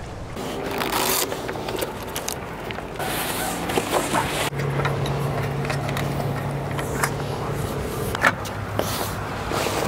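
Canvas of a vehicle-mounted roll-out awning rustling and scraping as it is pulled open, with repeated sharp clicks and knocks from its frame and support legs; the loudest knock comes a little after 8 s.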